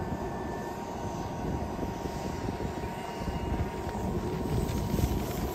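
Radio-controlled model warbird planes flying low on their landing approach: a steady propeller and motor hum with a thin, even whine under a low rumble.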